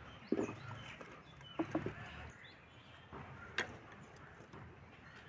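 Firewood sticks knocking and scraping as they are pushed into a clay mud stove, with a few sharp wooden knocks spread over several seconds. Faint bird chirps are heard in the background.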